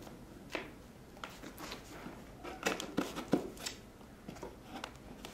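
A knife cutting the packing tape on a cardboard box: a string of short scrapes and taps, busiest a little past the middle.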